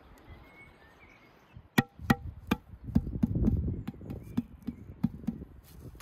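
Knife chopping on a cutting board: a run of sharp taps, about three a second, starting about two seconds in.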